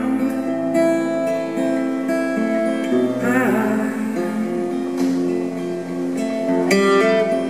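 Acoustic guitar played solo, picked and strummed chords ringing on, with a quick run of strums near the end.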